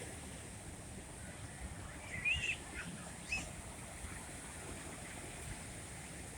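Steady outdoor rumble and hiss. Two short high chirps come about a second apart, the first about two seconds in and the louder of the two.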